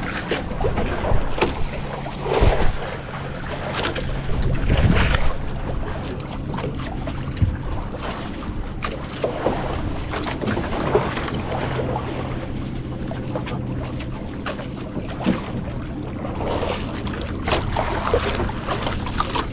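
Fishing boat's engine running steadily with a low hum, with wind buffeting the microphone and occasional light knocks.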